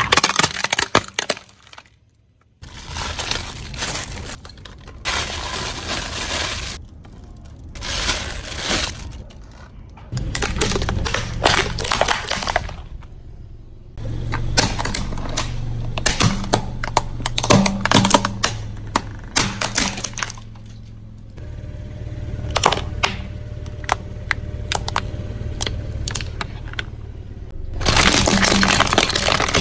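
A car tyre rolling over and crushing plastic toy trucks, bottles and plastic balloon pumps on concrete: a series of sharp cracks, snaps and crunches of breaking plastic, in several separate takes, with a low steady hum under some of them.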